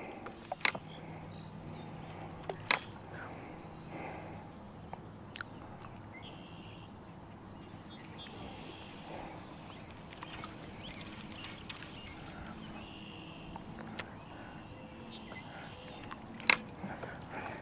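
Quiet outdoor background with several sharp clicks or knocks, the two loudest about three seconds in and near the end.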